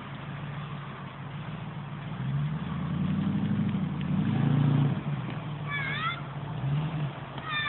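Lifted Range Rover's engine revving up and down as it crawls through mud, its pitch rising and falling and loudest about three to five seconds in. A short high-pitched squeal comes near the end.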